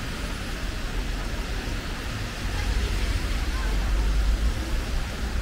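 Rainy city street ambience: a steady hiss of rain and traffic on wet road. A low rumble swells from about halfway through, then eases near the end.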